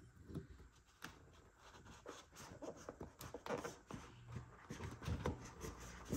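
Faint handling sounds as a spinning reel is worked out of the foam insert of its cardboard box: soft rustling and scraping of foam, with many light taps and clicks.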